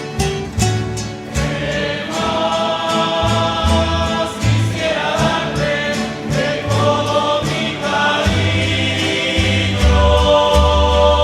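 Rondalla music: guitars strumming, joined about a second and a half in by a group of voices singing held notes in harmony.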